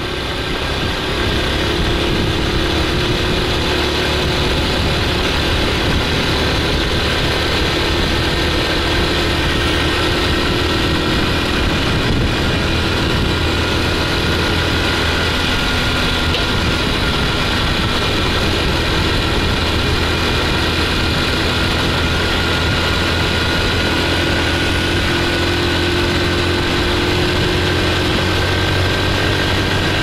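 Honda Super Cub C50's small four-stroke single-cylinder engine running steadily while the bike cruises along a road, its note holding nearly level.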